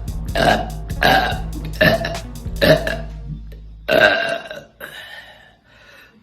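A person burping over and over: about five loud burps, each less than a second after the last, followed by a few fainter ones.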